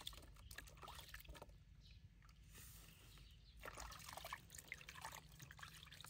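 Water poured from a cupped hand over a baby monkey in a plastic washbasin: a faint trickling and splashing, a little louder from about four seconds in.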